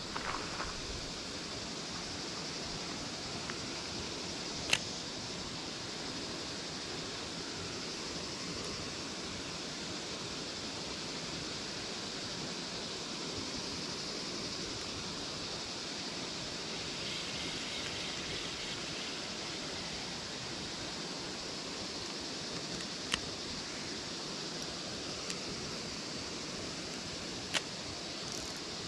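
Steady outdoor background hiss with a brighter high band, broken by three sharp clicks, one about five seconds in and two near the end.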